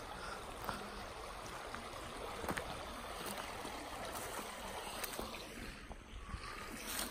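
Steady, faint rush of running water in a creek, with a few light clicks.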